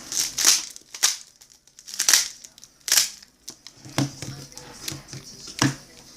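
Baseball card packs and cards being handled: a run of short crinkling, rustling swishes about once a second, with a few lighter taps between them.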